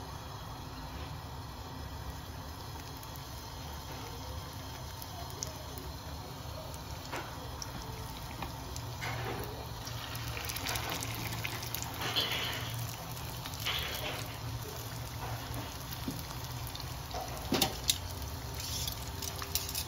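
Lumpia frying in hot oil: a steady sizzle that grows busier and a little louder partway through, with a few sharp pops near the end.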